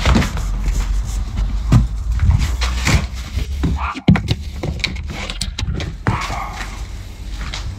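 A run of knocks and clatters as things are handled and moved about, over a low rumble from a hand-held camera on the move.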